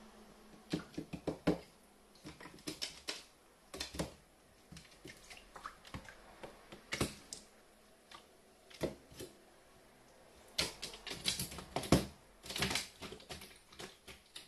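Carrion crow bathing in a shallow clear plastic tray: irregular clusters of small splashes and sharp taps of its beak and feet on the plastic, loudest near the end.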